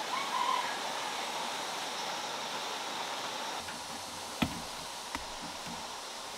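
Split bamboo strips being handled on the ground: two sharp clicks about three-quarters of a second apart, past the middle, over a steady rushing hiss. A brief chirp sounds right at the start.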